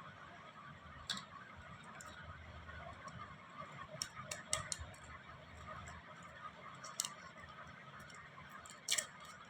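Hard-candy lollipops being handled, giving about nine short, sharp clicks and crackles at irregular intervals over a faint steady hiss, the loudest near the end.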